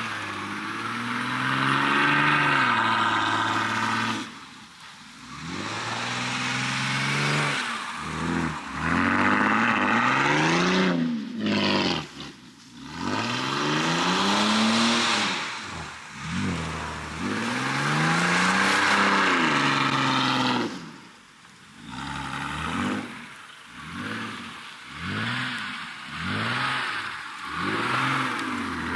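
All-wheel-drive car's engine revving up and down repeatedly: several long rises and falls in pitch, then a run of short, quick revs near the end.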